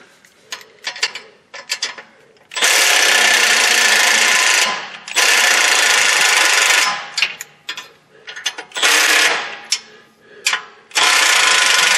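Impact ratchet running in four short bursts, tightening the flange nuts on a new exhaust Y pipe. A few light clicks come before the first burst.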